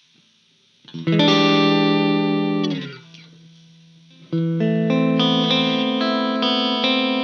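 Electric guitar through an effects unit with some distortion: a chord struck about a second in and cut short just before the three-second mark, then another chord struck after a short pause and left ringing.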